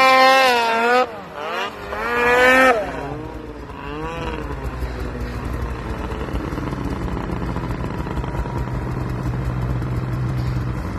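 Snowmobile with a Jaws race exhaust can revving hard twice in the first three seconds, its pitch rising and falling, then running steadily at lower revs.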